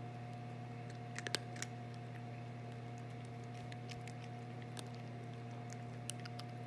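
A cat eating small dry treats: a quick cluster of little crunches and clicks about a second in, then a few single clicks later, over a steady low background hum.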